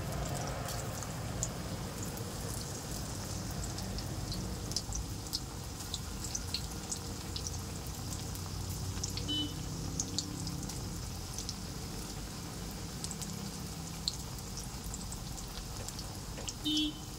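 Cauliflower pakoras in gram-flour batter deep-frying in hot oil: a steady sizzle with many small scattered pops and crackles.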